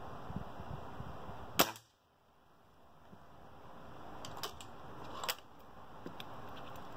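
A single sharp shot from a Weihrauch HW97 spring-piston air rifle fitted with a moderator, about a second and a half in. A few light clicks follow later.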